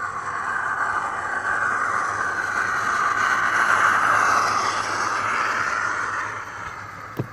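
Model T20 steam locomotive's sound decoder playing a steady steam hiss through its small speaker. The hiss swells to a peak about four seconds in and fades away near the end, followed by a single sharp click.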